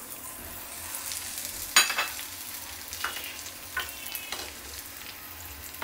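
Chopped onion and tomato sizzling in hot oil in a black wok, with a few sharp knocks and scrapes of a metal spatula against the pan as they are stirred; the loudest knock comes about two seconds in.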